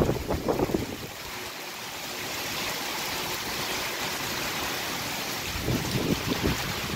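Heavy rain pouring steadily, with gusts of wind buffeting the microphone in the first second and again from about five and a half seconds in.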